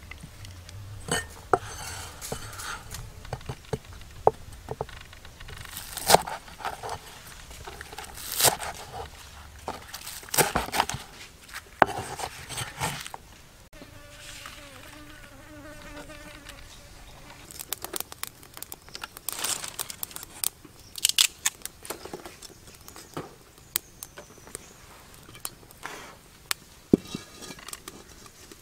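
A fly buzzing close by, its wavering drone clearest in the middle, over scattered sharp knocks and clicks of hands handling things.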